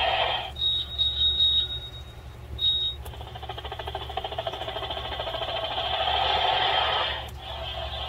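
Electronic sound effects from a children's push-button sound book's small speaker: a thin, broken high beeping tone for the first couple of seconds, then a buzzing, rapidly pulsing sound that grows louder and cuts off suddenly near the end.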